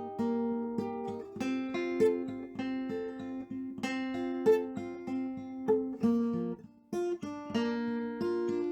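Background acoustic guitar music: a steady run of plucked notes, with a short break about seven seconds in.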